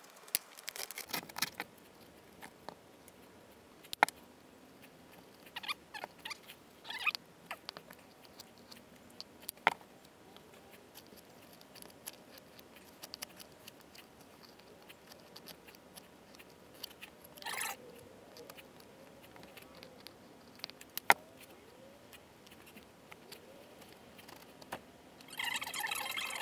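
Scattered sharp clicks, taps and short scrapes of foam board panels being handled and fitted together and sealant being spread with a plastic spatula. About a second before the end a louder, steady sound with many held tones comes in.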